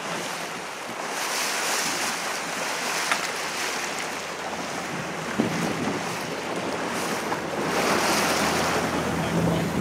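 Waves splashing against a boat's hull, with wind buffeting the microphone. The splashing swells twice, each time for a couple of seconds.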